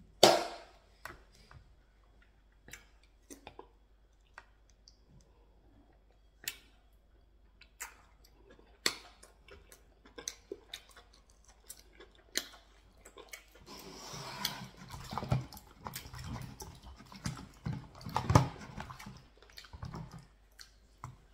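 Close-miked eating sounds: a person chewing pounded yam with slippery ogbono soup eaten by hand, with sharp wet mouth clicks and smacks scattered through the first half. About two-thirds of the way in, the chewing becomes denser and louder for several seconds.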